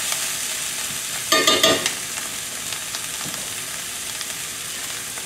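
Mushrooms and snow peas sizzling steadily in butter and sesame oil in a cast iron skillet, stirred with a utensil at the start. A brief louder burst comes about a second and a half in.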